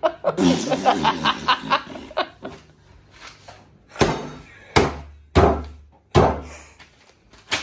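A man laughs briefly, then four sharp thuds come about a second apart as his hands press and handle a paper envelope on a wooden table.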